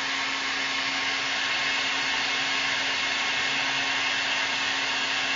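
Hair dryer running steadily: a constant blowing rush of air with a steady low hum underneath.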